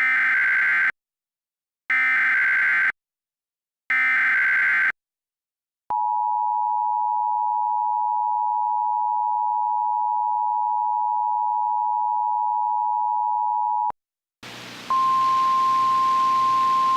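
Emergency Alert System tones: three one-second bursts of SAME header data, a harsh warbling digital screech, two seconds apart, then the two-tone attention signal held steady for eight seconds. After a short gap a hiss comes up and a single steady tone, the NOAA Weather Radio 1050 Hz warning alarm, begins.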